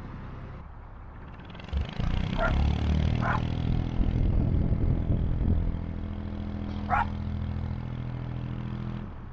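Narrowboat's diesel engine running, louder from about two seconds in, while a dog barks three short times, set off by the engine noise.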